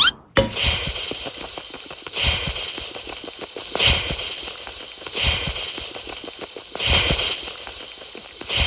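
A hissing, crackling sound effect that swells and fades about every one and a half seconds.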